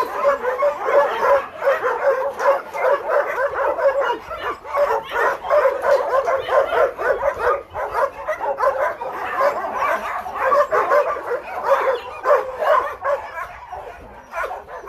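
Many dogs barking and yipping at once, a continuous din of overlapping barks that eases a little near the end.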